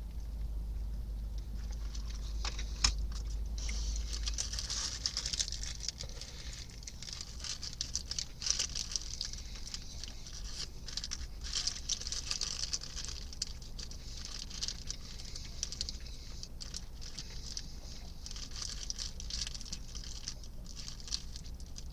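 Close-up chewing of a crunchy fried chicken sandwich: irregular crisp crackling and clicking from the breading, over a low steady hum.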